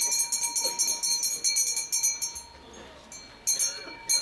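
Sanctus bells (a cluster of altar bells) shaken in a rapid jingle, marking the elevation of the consecrated host at the Eucharist. The ringing stops about halfway through, then comes twice more in short shakes near the end.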